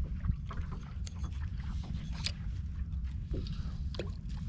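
Steady low rumble of a fishing boat on the water, with scattered small clicks and knocks.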